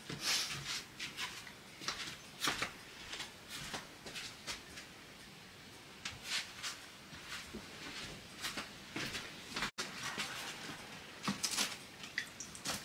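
Kitchen handling noises: scattered light clicks and taps at irregular intervals, from moving a baking pan and mug about.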